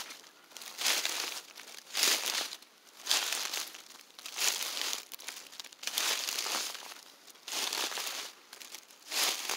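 Dry fallen leaves crunching and rustling in short bursts about once a second, each a crisp crackle with quieter gaps between.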